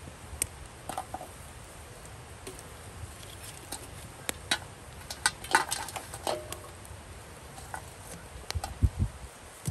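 Tongs and a small metal shovel clinking and scraping as lumps of burning charcoal are set on an aluminium pot lid, with scattered sharp clicks and knocks of coal on metal. A few dull thumps come near the end.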